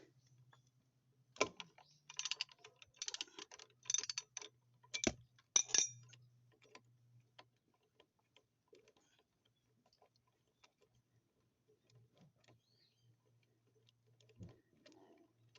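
Metal hand tools and parts clinking and clicking, with a dense run of sharp clinks in the first six seconds, then only scattered light clicks.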